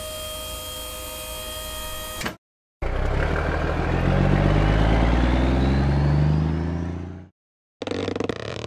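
Cartoon dump truck sound effects: a steady mechanical hum with a few held tones as the tipper bed lowers, then a truck engine revving up with rising pitch as it drives off, fading out after about four seconds. A short rattle comes near the end.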